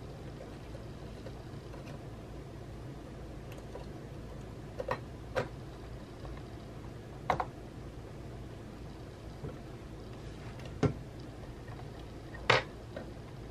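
A handful of scattered sharp clicks and taps from hands handling the internal parts and casing of an opened Mac mini (Mid 2011), the loudest near the end, over a steady low hum.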